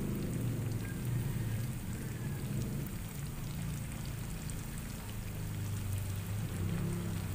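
Tofu frying in hot oil in a non-stick pan, a steady sizzle and crackle, while a slotted plastic spatula moves the pieces. Under it runs a low, steady hum.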